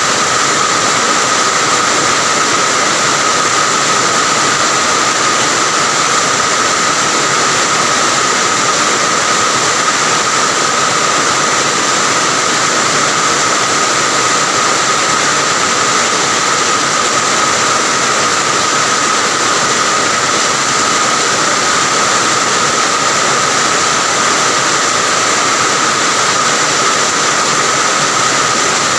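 Steady heavy rain falling, an even unbroken hiss with a constant high tone running through it.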